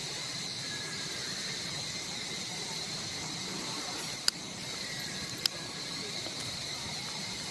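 Steady high-pitched insect chorus. Two sharp clicks come a little over a second apart, about halfway through.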